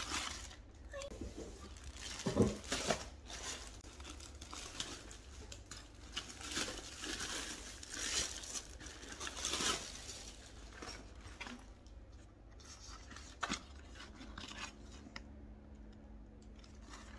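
Clear plastic packaging bag crinkling and tearing as it is handled and pulled off a backpack. The crackling is busiest in the first ten seconds and thins out after.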